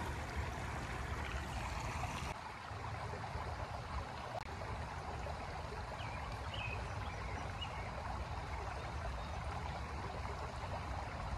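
A shallow creek running steadily over rocks. It drops slightly in level about two seconds in.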